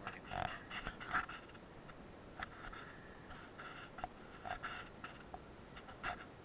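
A cat grooming itself: faint, soft, wet licking clicks in irregular little clusters.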